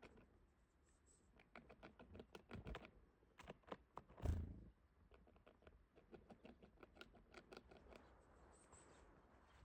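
Red squirrel gnawing a sheep bone: faint, irregular runs of small scraping clicks from its teeth on the bone, with one louder knock a little after four seconds in.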